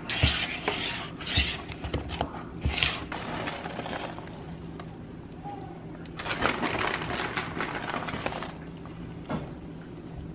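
Silicone spatula stirring and scraping thick batter in a plastic mixing bowl in a few sweeping strokes, then crackly rustling with a soft patter about six seconds in as handfuls of shredded cheese are pulled from a plastic bag and dropped into the batter.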